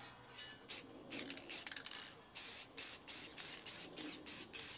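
Aerosol spray-paint can hissing in short, quick bursts, a couple at first and then about three a second through the second half, laying down a light first tack coat of paint.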